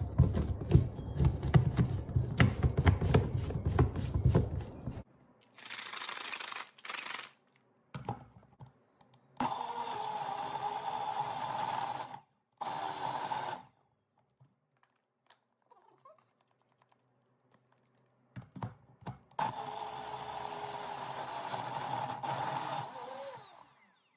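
Rapid clicking and knocking for the first few seconds. Then a Nutribullet blender motor runs in three pulses with a steady whine, two of them a few seconds long and one brief, blending frozen berries, protein powder, yogurt and water into a thick mix.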